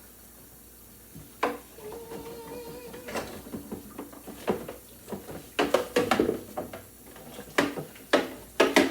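Knocks and clatter of hard plastic and dishes being handled, sharp and irregular, thickening over the last few seconds. A short steady tone sounds for about a second, about two seconds in.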